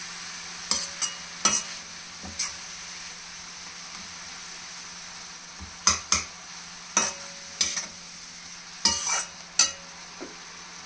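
Chopped fenugreek and spinach leaves sizzling steadily in oil in a stainless steel kadhai, stirred with a perforated steel skimmer that scrapes and clinks against the pan about a dozen times in short bunches.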